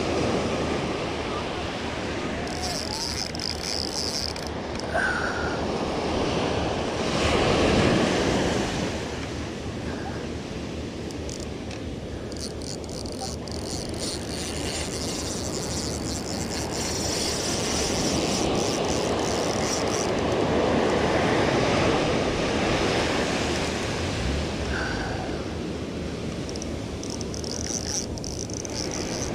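Ocean surf breaking and washing on the shore, a steady rush that swells twice, about a third of the way in and again past the middle, with wind buffeting the microphone.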